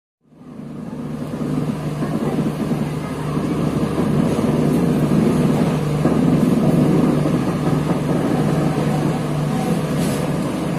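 Running noise of an LHB passenger coach rolling along the rails, heard from aboard the moving train: a steady low rumble of wheels on track that comes in at the start and builds over the first few seconds.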